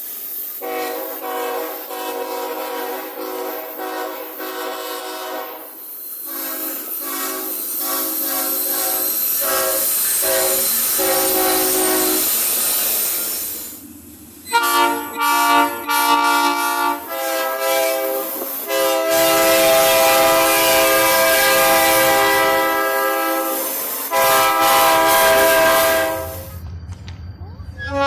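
Locomotive air horn sounding a chord of several notes in a played sequence of blasts: a long blast of about six seconds, a run of shorter blasts, a brief pause, quick short blasts, then a long blast of about nine seconds.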